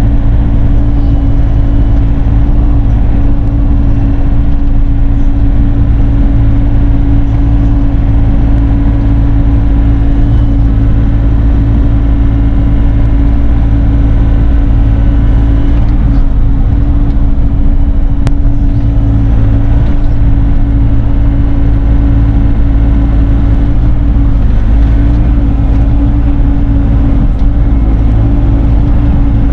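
Bobcat E42 mini excavator's diesel engine running steadily at a constant throttle.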